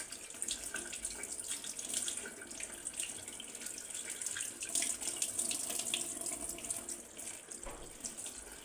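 Tap water running into a sink while sambong leaves are rinsed by hand under it, a steady hiss broken by uneven splashes.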